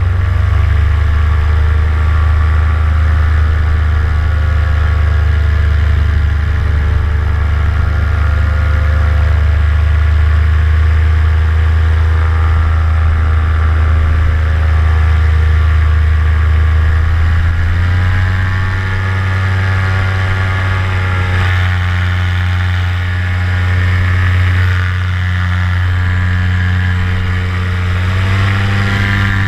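Vittorazi Moster 185 two-stroke paramotor engine and propeller running steadily in flight. About two-thirds of the way through the engine speed steps up, and it rises a little again near the end.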